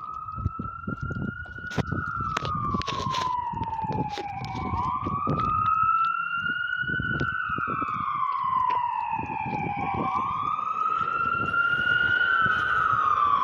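Emergency vehicle siren in a slow wail, rising and falling about every five seconds and growing louder as it comes closer. Irregular low rumble and knocks run underneath.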